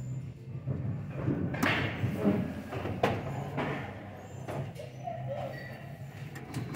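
A few sharp mechanical clicks and knocks from a stereo double cassette deck's transport keys and cassette doors being worked by hand, the clearest two about a second and a half apart, over a steady low hum.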